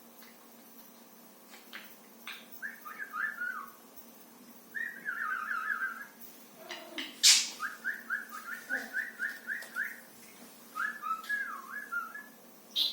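Pet parrot whistling in four runs of quick, short repeated notes, with a sharp click about seven seconds in.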